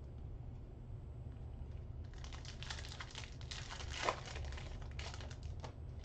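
Foil wrapper of a 2022 Panini Select football trading-card pack crinkling and tearing as it is ripped open by hand. The crackling runs from about two seconds in to near the end, with one sharper tear about four seconds in.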